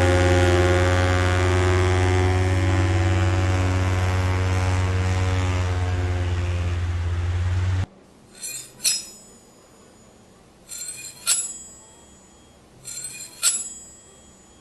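A loud, steady droning hum that cuts off suddenly about eight seconds in, followed by three quick clusters of bright clinks with a short ringing, about two seconds apart.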